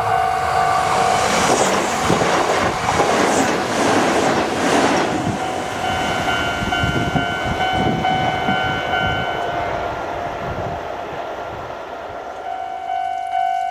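A Japanese level crossing's electronic warning bell rings with a steady repeating ding while a Kintetsu Minami Osaka Line electric train passes over the crossing. The train is loudest in the first few seconds, then its wheels clatter and rumble over the rails and fade away near the end, leaving the bell ringing on its own.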